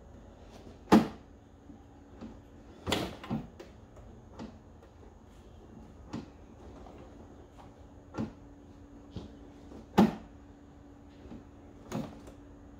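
Mobility scooter's tiller adjustment lever and tiller pivot: a series of separate clicks and clunks as the lever is worked and the tiller is moved and latched. The loudest come about a second in and about ten seconds in.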